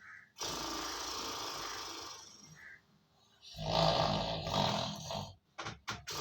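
A man snoring loudly on purpose for a prank. There are two long snores about three seconds apart, then a few short broken snorts near the end.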